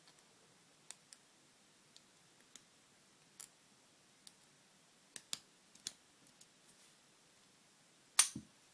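Lock pick working the spool pins of an Abus 60/40 long-shackle padlock out of a false set: scattered faint clicks, then one loud sharp click near the end as the lock opens.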